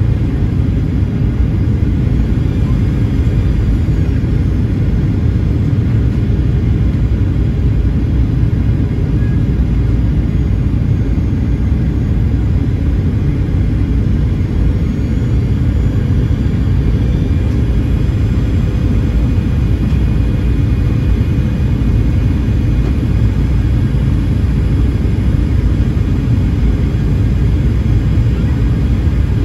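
Steady cabin roar of a Boeing 737-900ER in flight, heard from a window seat beside the wing: CFM56-7B jet engine and airflow noise, deep and even, with a faint steady whine above it.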